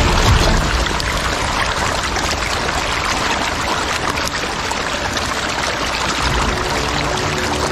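A dense mass of hybrid catfish thrashing and churning at the pond surface, giving a steady hiss of splashing water.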